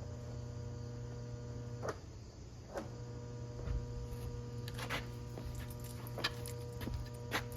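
Electric pressure washer switched on but not yet spraying: a steady electrical hum with a few scattered clicks.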